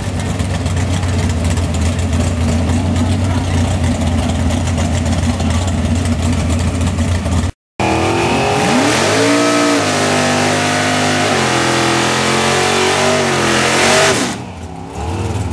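Street-race cars' engines idling with a steady low rumble. After a cut, an engine revs up and down repeatedly over loud tyre noise as the car does a burnout, and the revving stops about a second before the end.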